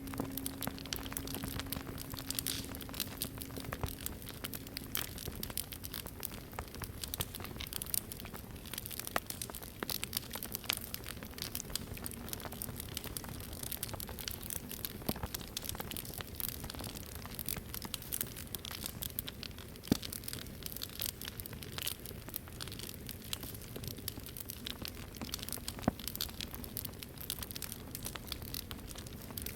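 Wood fire crackling and popping steadily, with a few sharper pops. Over the first few seconds, the low hum of a struck singing bowl fades away.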